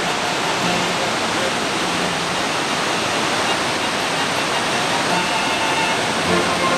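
Steady rush of a mountain valley stream pouring over rocks. Faint music sits underneath and grows clearer near the end.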